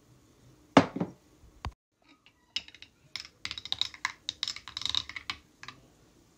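A ceramic creamer pitcher set down on a counter with a couple of knocks, then a ceramic spoon stirring coffee in a ceramic mug, clinking rapidly against the sides for about three seconds.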